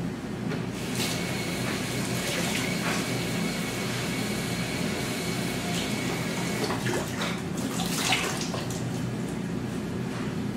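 Kitchen sink tap running as mushrooms are rinsed under the stream, with a few light knocks and clatters.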